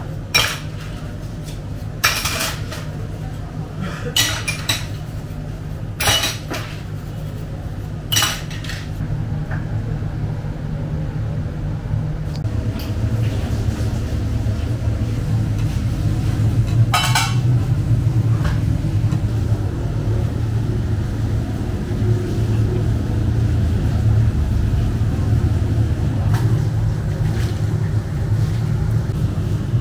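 Metal dishes and cutlery clinking as they are washed by hand in a steel sink, about five sharp clinks spaced a couple of seconds apart over the first eight seconds. After that a steady low rumble takes over, with only an occasional clink.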